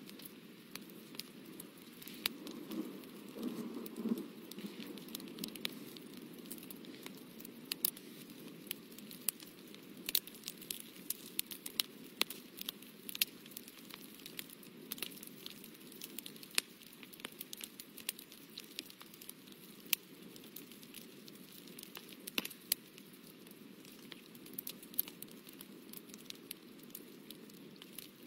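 Paper being handled close to the microphone: a low rustle with scattered sharp crackles and clicks, the rustle heaviest a few seconds in.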